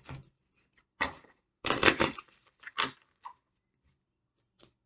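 Tarot cards being shuffled and handled: several short papery rustles and slaps, the longest and loudest about two seconds in.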